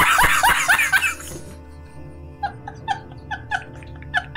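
A man laughing hard in fast, rising bursts that die away after about a second and a half, followed by a string of short, high squeals over a steady background music bed.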